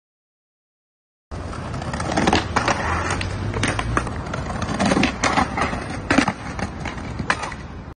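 Skateboard wheels rolling over brick pavers, starting about a second in, with a series of sharp clacks of the board; the loudest slap comes about six seconds in, as a jump down a set of stone stairs is landed.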